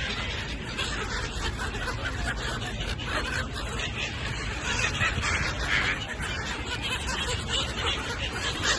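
A flock of gulls calling, many harsh, laughing cries overlapping.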